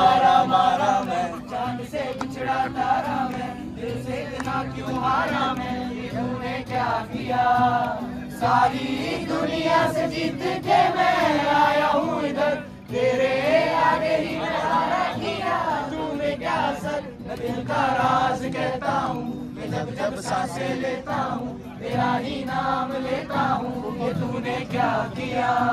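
A group of voices singing together to acoustic guitar strumming.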